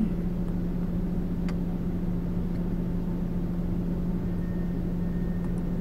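Car idling, heard from inside the cabin: a steady low hum over an even rumble.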